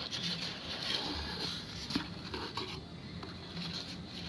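Small cardboard shipping box being opened by hand: the cardboard scrapes and rustles as flaps are pulled back, with a few light clicks.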